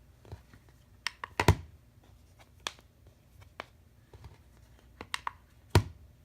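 Scattered small clicks and taps of hands handling a smartwatch and its magnetic charging puck, with a sharper click about a second and a half in and another near the end.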